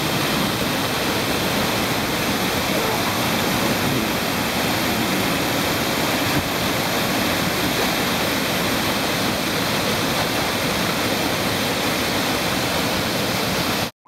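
Waterfall and whitewater rapids rushing in a steady, even wash of falling and churning water. It cuts off suddenly near the end.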